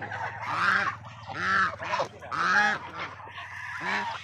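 Domestic geese honking: four loud, harsh calls about a second apart, the last one weaker.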